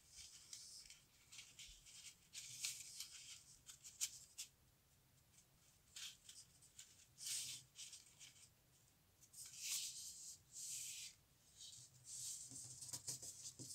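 Square origami paper being folded into a triangle: faint, scattered rustles and swishes as fingers slide along the paper and press the crease flat.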